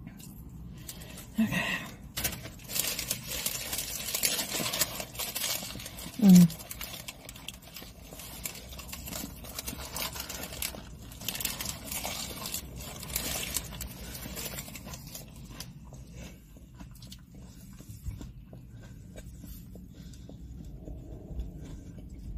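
Fast-food wrappers and sauce packets crinkling and rustling as someone eats, dense for the first dozen or so seconds and quieter after that. A short vocal sound about six seconds in is the loudest moment.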